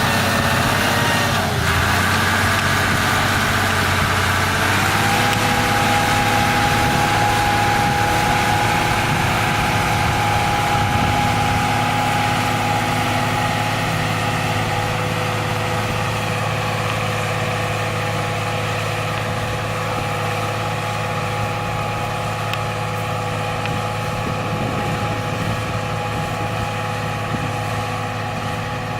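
Massey Ferguson tractor's diesel engine running steadily under load while ploughing. Its note shifts in the first few seconds, then settles to an even pitch.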